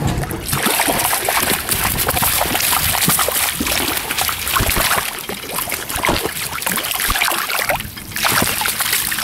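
Lake water splashing and dripping as a landing net is dipped in to scoop a rainbow trout, with many small irregular splashes throughout.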